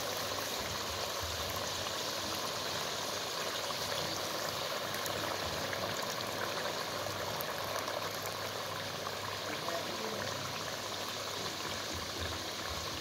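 Chicken karahi gravy of chicken, tomato and green chillies cooking hard in the karahi: a steady bubbling hiss with faint crackles.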